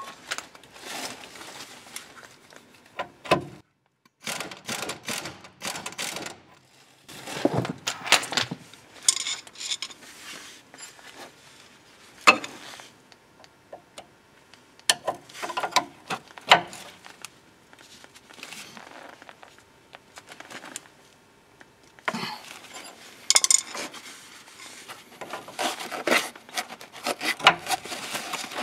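Metal hand tools clinking and scraping against the corroded nut of a car's anti-roll bar link on the front strut, in irregular bursts of sharp knocks and rubbing with short pauses between.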